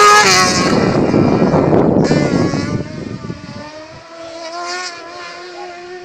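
Single-seater car-cross buggy's high-revving engine, loud as it passes close and then fading as it accelerates away up the hill. After about three and a half seconds only a faint, distant engine note remains.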